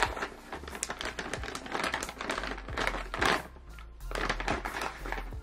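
Plastic gummy-candy pouch crinkling in irregular crackles as it is handled and turned over, with background music underneath.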